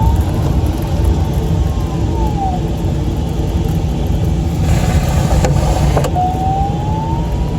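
Steady rush of airflow in a LAK-17 sailplane's cockpit, with the audio variometer's tone sliding down in pitch early on and rising again about six seconds in, the sign of the glider entering climbing air. A brief hiss with a couple of clicks comes around five seconds in.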